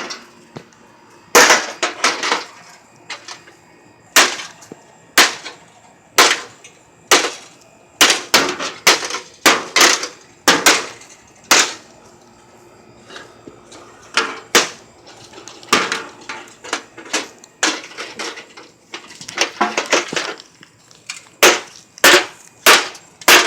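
A microwave oven being smashed: dozens of sharp, loud blows at irregular spacing, sometimes in quick runs of several a second.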